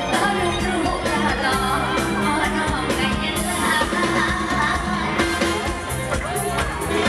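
Live mor lam music: a woman singing into a microphone over an amplified band with a steady beat and bass.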